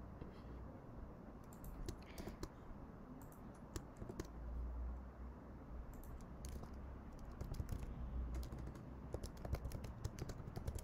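Typing on a computer keyboard: scattered, irregular keystrokes with short pauses between bursts.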